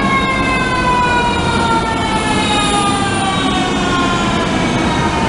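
Fire truck siren with its pitch falling slowly and steadily, over a low engine rumble.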